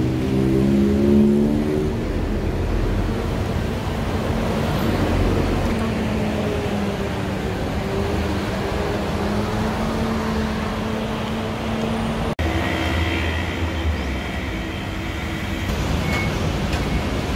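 A vehicle running, its motor pitch rising in steps near the start and then holding a steady hum. About twelve seconds in the sound breaks off abruptly and a different vehicle noise follows, with faint high whines.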